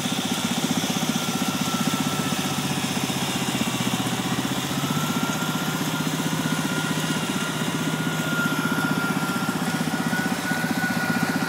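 Small garden tractor engine running steadily while plowing, a close, even drone. A steady high whine joins it about five seconds in.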